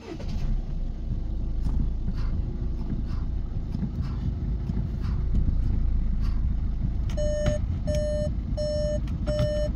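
Skoda Superb's engine idling steadily, just started. About seven seconds in the car gives four short, evenly spaced electronic beeps.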